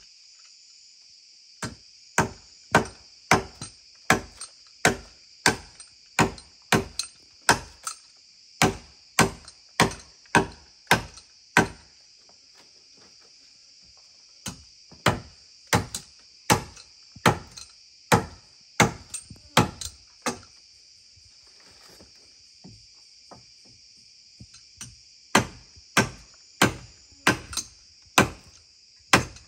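A hand tool chopping into earth and roots, about one and a half sharp strokes a second in three runs with short pauses between them. A steady high insect drone runs underneath.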